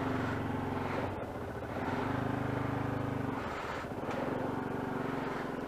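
Small single-cylinder 125cc bike engine running while riding, with road and wind noise; its pitch holds steady and shifts a few times as the throttle changes.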